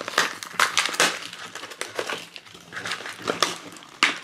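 Plastic and paper blind-pack wrapping being handled and torn open: irregular crinkling and crackling, with a sharper crackle near the end.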